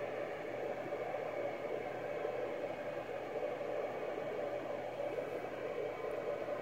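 Steady, even hiss of the ICOM IC-746PRO's FM receiver on the ISS 2 m downlink (145.800 MHz), with the signal gone: the space station has dropped below the horizon and only receiver noise is left.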